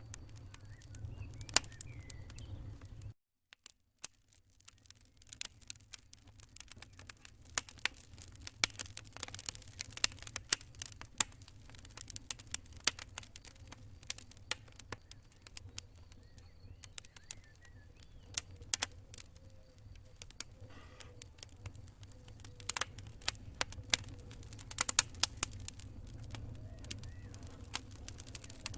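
Wood fire crackling in a fireplace: irregular sharp pops and snaps over a low rumble. The sound drops out almost completely for about a second near the start, then carries on.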